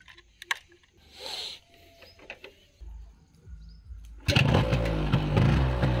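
Yamaha RX135's single-cylinder two-stroke engine starting: a few faint clicks, then it catches about four seconds in and runs steadily through its original catalytic silencer.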